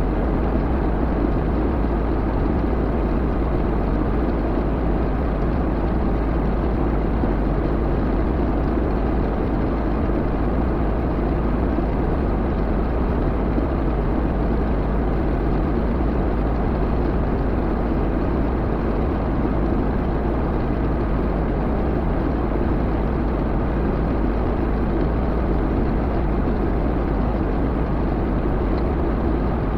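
Backhoe engine running steadily with a heavy low rumble and no change in speed.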